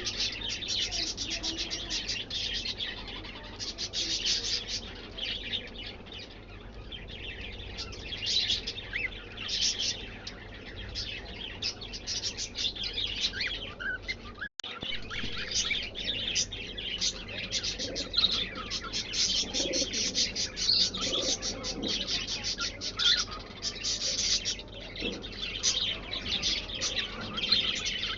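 Cockatiels and other pet birds chirping and calling continuously, many quick overlapping chirps. There is a brief complete break in the sound about halfway through.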